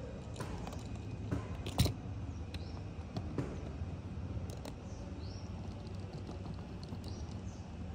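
Small clicks and knocks of a plastic toy dump truck being handled and rolled on a foam play mat, with one sharp click about two seconds in. Faint short high chirps come every second or two over a steady low hum.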